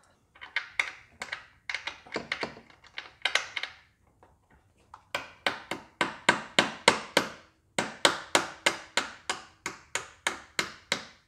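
Hammer tapping a screw held in a 7 mm socket through the engine-warmed plastic intake manifold, punching the port for a boost tap. A few scattered taps come first, then from about halfway a long, even run of sharp taps, about three a second.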